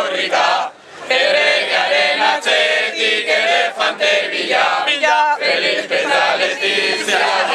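A group of people singing a protest song together in unison, with a brief break about a second in.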